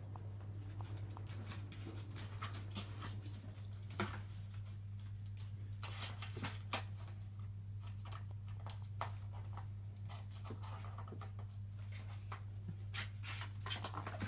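Bengal kittens playing on a hard floor: scattered light taps, scuffs and clicks of paws and toys, the sharpest at about four seconds and again near seven seconds, over a steady low hum.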